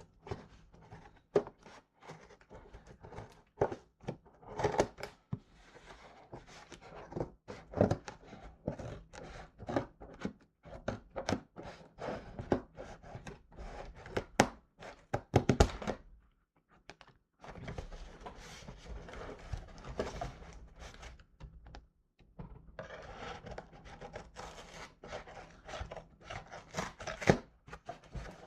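A cardboard package being handled and opened: many irregular knocks and thunks, then stretches of steady rustling from just past halfway, with more knocks mixed in.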